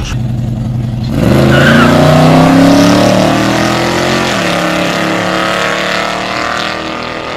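Drag-strip car launching at full throttle: the engine revs climb for about three seconds, drop suddenly at a gear shift a little after four seconds in, then pull on more steadily as the car runs away down the strip.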